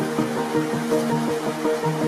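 Electronic background music with quick, evenly repeating notes.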